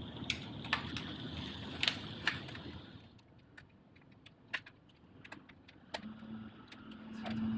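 Scattered light clicks and rattles of small parts being handled while the stock shifter box and its cable connectors are worked loose. A steady hiss fades after about three seconds, and a low hum comes in near the end.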